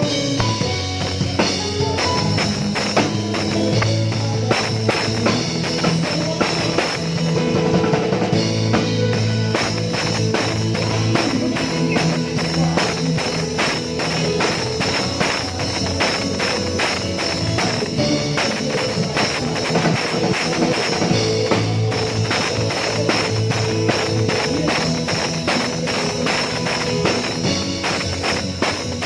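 Live band music with a drum kit playing a steady beat, bass drum and cymbals over sustained bass and keyboard or guitar tones.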